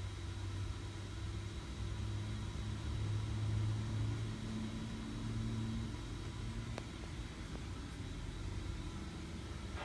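A vehicle engine running with a steady low hum that swells slightly about three to four seconds in.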